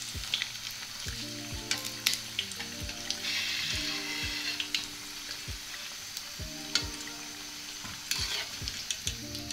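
Spinach-and-gram-flour pakoras deep-frying in hot oil in a metal karahi, sizzling steadily, a little louder a few seconds in. Scattered sharp clicks of a metal slotted spoon against the pan as the fritters are lifted out.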